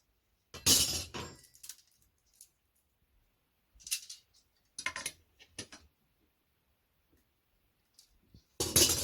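Short clinks and clattering knocks of flat-pack furniture hardware being picked up and fitted, most likely the metal drawer runners. There are about five separate knocks with pauses between, the loudest about half a second in and near the end.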